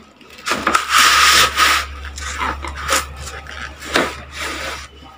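Cardboard packaging scraping and rubbing as a large flat box is pulled open and parts are slid out, with a long harsh scrape about a second in, then a few light knocks.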